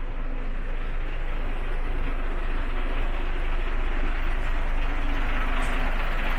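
Road vehicle driving, with steady engine and road noise that grows a little louder near the end.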